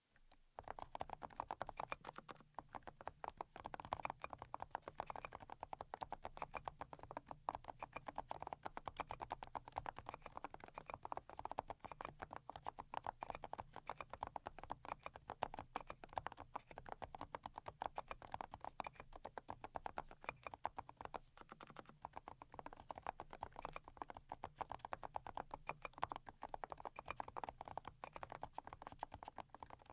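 Typing on the Pochiko custom mechanical keyboard with fully hand-lubricated switches: a fast, continuous run of keystrokes starting about half a second in.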